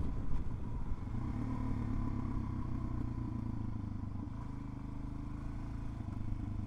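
Suzuki DR-Z400's single-cylinder four-stroke engine running steadily at low revs, easing off slightly in level.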